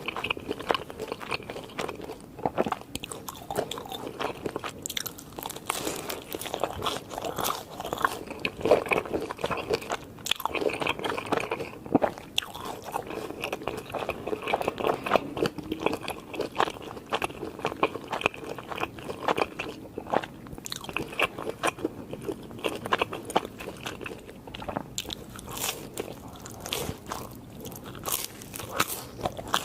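Close-miked biting and chewing of crunchy fried fast food: dense, irregular crisp crunches and mouth sounds throughout.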